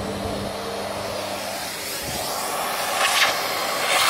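Canister vacuum cleaner running with its suction turned up, a steady rushing whoosh. Near the end the rushing grows louder in two short surges as the hose tube is put to a pushed-in woofer dome to suck it back out.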